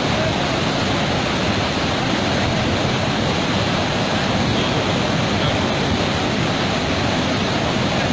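A steady, even rushing noise with no distinct events, holding the same level throughout.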